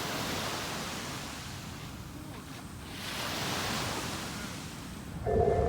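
Surf washing on a beach, a steady noise that swells and eases. About five seconds in, the first held notes of the disaster-prevention loudspeaker chime start.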